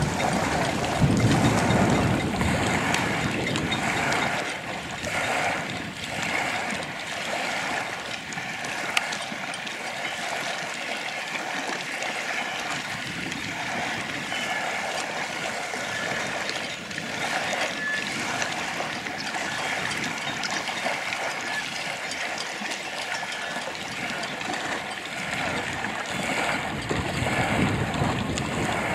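Choppy lake water lapping and splashing. Wind buffets the microphone at the start and again near the end.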